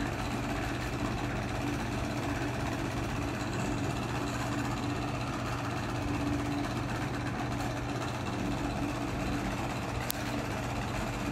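Steady mechanical hum of a running motor, with a low drone and an even level throughout.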